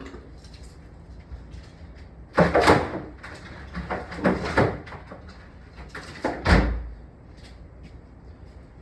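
Clattering knocks and bangs in three bursts, the last ending in a heavy thump, like hard objects being moved or a door banging.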